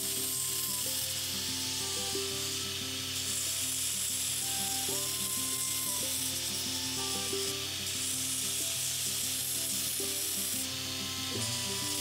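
Belt sander grinding the plastic edge of an EasyShoe glue-on horseshoe, a steady abrasive hiss that eases off briefly a few times as the shoe is lifted and repositioned, while a taper is ground into the shoe. Background music plays underneath.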